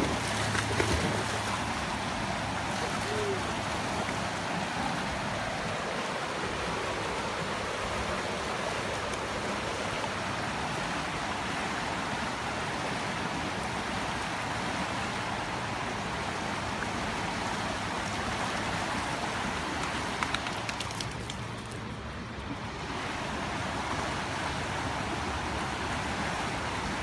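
Fast, shallow river rushing steadily over rocks. Near the start a dog splashes through the shallows.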